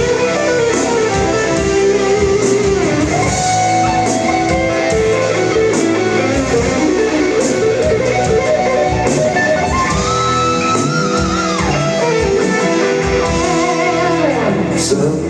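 Jackson X Series DK3XR HSS electric guitar played through a Headrush pedalboard's JCM800 preamp sim, with a Tube Screamer in front and a Greenback cab sim, giving an overdriven improvised lead solo. It has held notes and string bends, and a slide down near the end.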